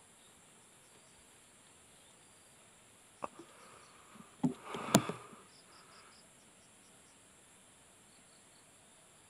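Steady high chirring of crickets and insects. From a little past three seconds to about five seconds in come a few sharp clacks from handling the air rifle, the loudest a single sharp crack about five seconds in.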